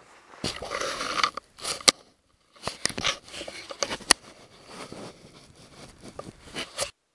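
Handling noise on the action camera: irregular scraping and rubbing against the mic, broken by several sharp knocks. It starts suddenly and cuts off just before the end.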